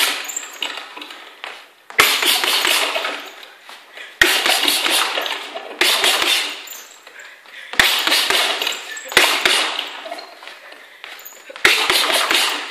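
Boxing gloves striking a floor-to-ceiling ball in quick combinations, a few sharp hits at a time about every two seconds, each combination trailed by a noisy rush that fades.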